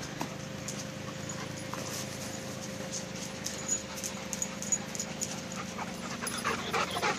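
A dog panting hard from running after a thrown ball, the quick rhythmic breaths growing louder as it comes close near the end. A faint steady hum runs underneath.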